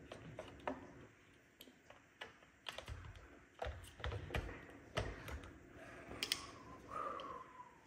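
Scattered light plastic clicks and taps as a battery is fitted and pressed into the battery compartment of an iRobot Braava 380t robot mop.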